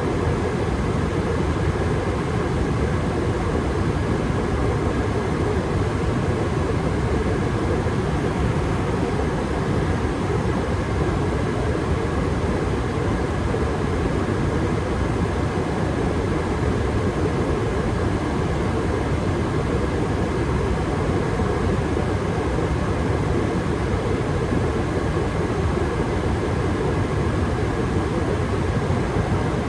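Gas furnace running at steady state, its circulation blower moving air with a steady rush and a few faint steady tones over it.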